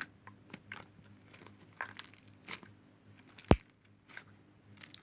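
Slime being squeezed and poked in the hands, giving irregular small clicks and crackling pops, with one much louder sharp click about three and a half seconds in.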